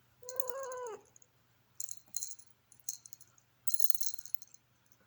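A pet cat meows once, a call of a bit under a second. It is followed by three short bursts of high jingling rattle.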